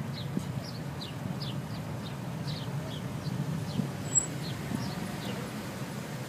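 Idling car engines giving a steady low rumble, with a bird chirping over it in short, quick, falling chirps several times a second that die away near the end. One sharp click with a brief high ping about four seconds in.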